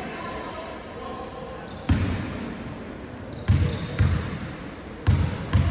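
A basketball bounced five times on a wooden sports-hall floor: one bounce about two seconds in, then two quick pairs. Each is a sharp thump echoing briefly in the hall, the free-throw shooter's dribbles before the shot.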